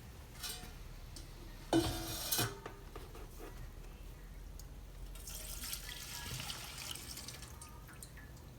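Fuel being drained from a chainsaw's fuel tank into a container: a short clatter about two seconds in, then fuel pouring and trickling through the second half.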